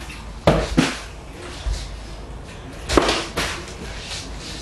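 Plastic water bottle knocking against wooden shelving: two pairs of sharp knocks, the first about half a second in and the second about three seconds in.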